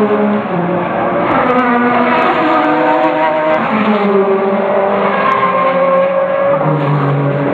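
Engines of several sports-prototype endurance race cars running through a corner together, overlapping at loud volume, their pitches sliding down and climbing again as they brake, change gear and accelerate away.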